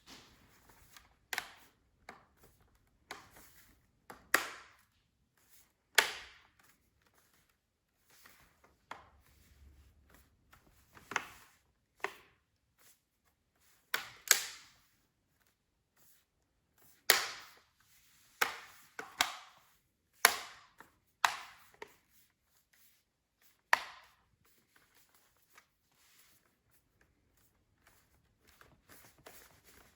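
Plastic bottom cover of a Dell Inspiron 15 5000 laptop being pressed back into place: a string of sharp clicks and snaps at irregular intervals as the clips seat.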